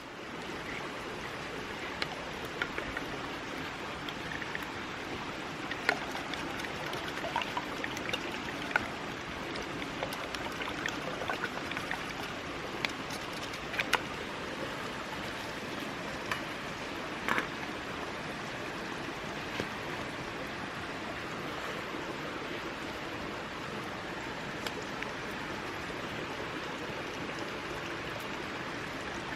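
Campfire crackling: a steady hiss with scattered sharp pops and snaps, most of them in the first half.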